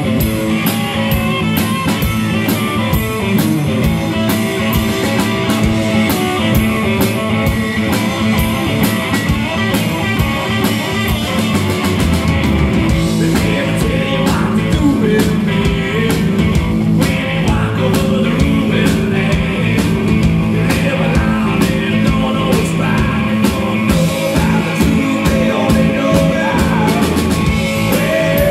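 Live rock band playing with electric guitar and drum kit, the drums keeping a steady beat.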